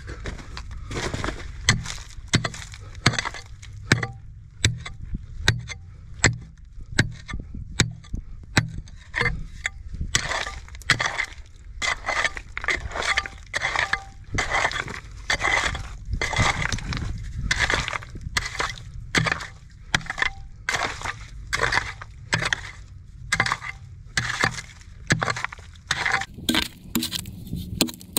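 A hand pickaxe striking and breaking up stony mud and rock over and over, a steady run of sharp blows at about one or two a second, with stone chinking and cracking.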